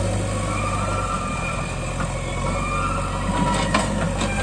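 Diesel engine of a JCB 3DX backhoe loader running under work as its front bucket is lowered, with a higher wavering whine over the steady engine hum. A few sharp knocks come near the end.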